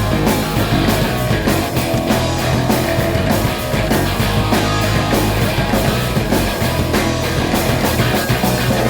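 Loud rock music with distorted electric guitar and drums, played steadily throughout.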